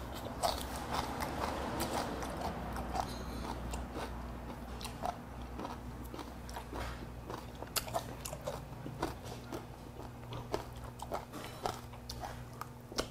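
A person chewing food, a run of small sharp crunching clicks several times a second, over a faint steady low hum.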